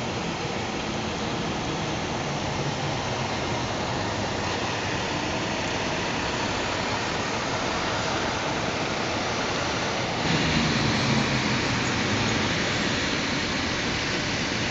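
Heavy rain pouring down in a dense, steady hiss, getting a little louder about ten seconds in.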